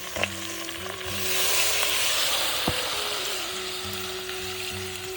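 Pork legs sizzling in a hot cooking pot. The sizzle swells loud about a second in as water is added, then slowly dies down.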